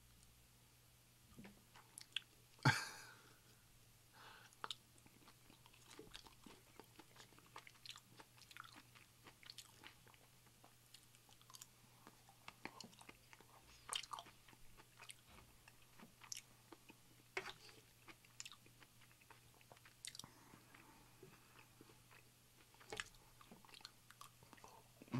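Faint close-miked chewing and mouth sounds: soft wet clicks and crackles scattered through, with one sharper click a couple of seconds in.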